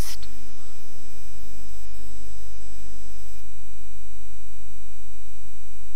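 Steady low electrical hum of the mains-hum kind, loud and unchanging, with nothing else happening.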